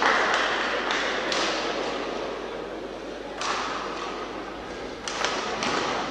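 Sports-hall ambience at a badminton match: a steady murmur of spectators echoing in the hall, broken by a few sharp knocks, several of them close together near the end.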